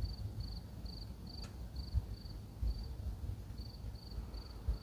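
Crickets chirping: a steady train of short, high chirps, about three a second, over a low rumble, with a faint click about a second and a half in.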